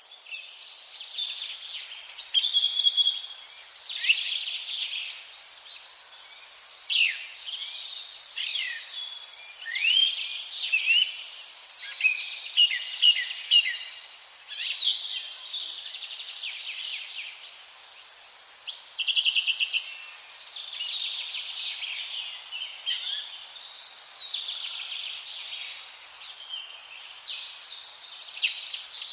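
Several birds singing and calling at once, a busy mix of overlapping chirps, whistles and quick sweeping notes, with a fast even trill about 19 seconds in.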